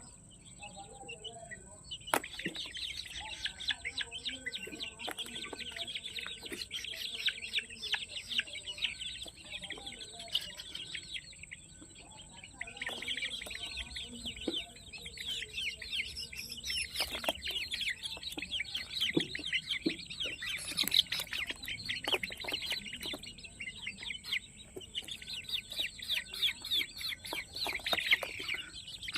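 A brood of Peruvidai country chicks peeping continuously in dense, rapid high chirps, with occasional clucking and a few sharp knocks.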